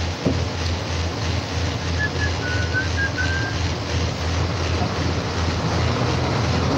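Engine and road noise inside a moving vehicle, a steady low rumble. About two seconds in, a short run of high whistled notes.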